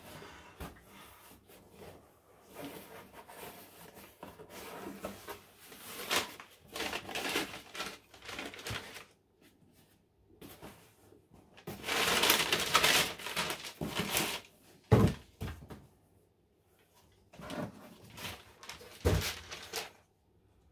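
Cardboard shoebox being opened and kraft wrapping paper rustling and crinkling as a pair of leather boots is unwrapped, loudest a little past the middle. Two dull thumps follow, a few seconds apart, as the boots are set down.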